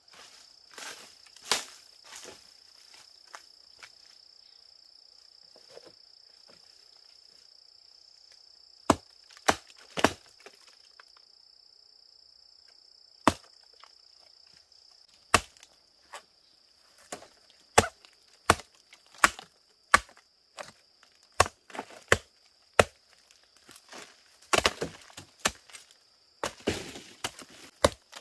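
Sharp woody chops and cracks from a blade hacking into a rotting palm stump, irregular at first and coming faster and more often in the second half. A steady high insect drone runs underneath.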